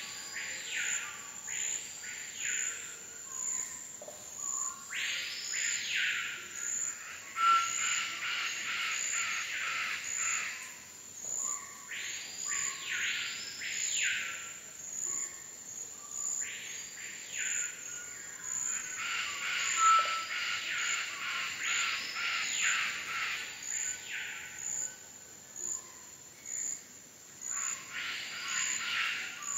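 Amazon rainforest ambience: a bird repeatedly gives loud calls in pairs, each sweeping up in pitch and back down, every few seconds. Under it runs a constant high-pitched insect drone with a regular pulse, and a rougher chorus swells twice.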